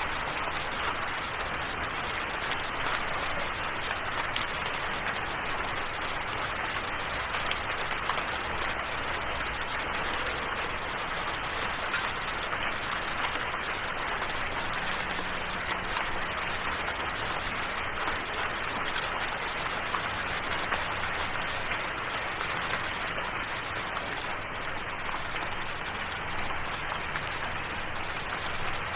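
Steady rain falling, with a dense patter of drops.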